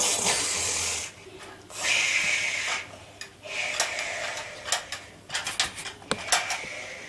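Hard plastic Lego toy parts being handled, clicking and rattling in quick irregular clicks in the second half, with three bursts of hissing noise in the first few seconds.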